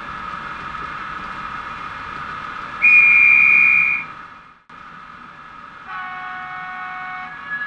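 Train sounds: a steady hum of several tones, then a loud single-pitched train whistle blast of just over a second about three seconds in, and from about six seconds a steady chord of several tones like a multi-tone train horn.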